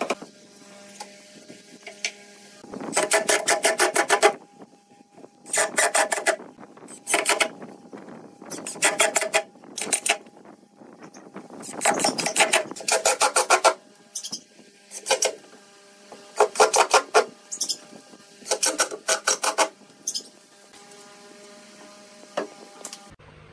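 Makita 18V cordless impact driver running in about nine short bursts of one to two seconds, each a rapid stream of impacts, as it drills holes and drives screws into pine.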